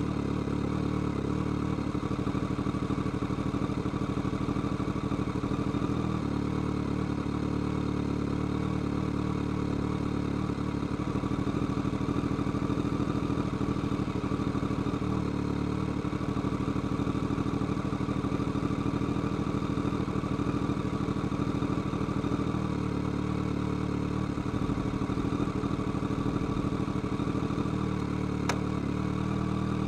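BMW K1200R's inline-four engine and exhaust running at steady revs under way, the engine note holding an even pitch.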